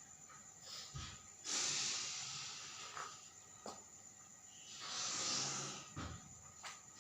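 Two heavy, breathy rushes of air close to the microphone: the first starts sharply and fades, and the second swells and fades about five seconds in. A few soft clicks fall between them.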